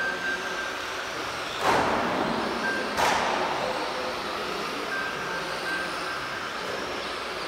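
Electric 1:10 scale RC racing trucks on Tamiya TT01E chassis running on the track: a steady mix of motor whine and tyre noise, with two sudden louder rushes about a second apart near two and three seconds in as trucks pass close.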